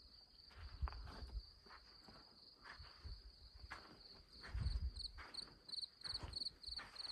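Crickets calling: a steady high trill, joined about five seconds in by a louder chirp repeating about three times a second. Irregular footsteps and scuffs on rock are heard alongside.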